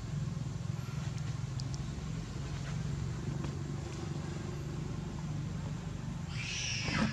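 A steady low motor drone, with a short hissing burst near the end.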